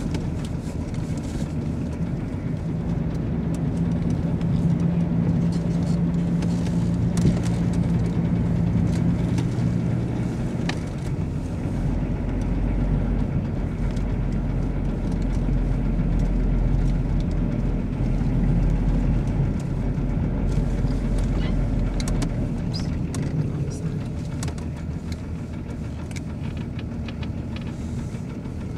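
Car engine and tyre noise heard inside the cabin of a car driving slowly, a steady drone whose engine note holds for about the first ten seconds, then sinks into a deeper rumble for several seconds.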